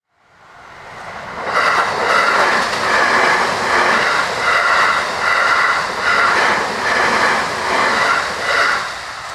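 Train hauled by a D51 steam locomotive and a DE10 diesel locomotive passing a level crossing. The sound is loud, with a regular pulsing beat about one and a half times a second, and eases off near the end.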